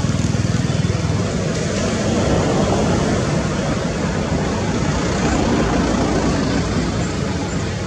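An engine running: a fast low throb at first, giving way to a broader, steady rumble about a second and a half in.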